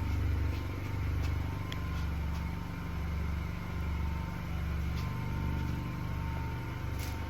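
A Honda Accord's 1.5-litre turbocharged four-cylinder idling: a steady low rumble that swells and fades about once a second, with a few faint clicks.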